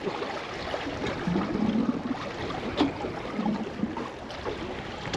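Water slapping and lapping against the hull of a small drifting boat, with one sharp knock near the middle.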